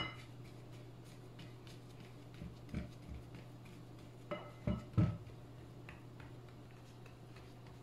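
A silicone spatula pressing and scraping crumbly biscuit-and-butter mixture into a glass bowl, with several soft knocks against the glass, the loudest two close together about five seconds in. A steady low hum runs underneath.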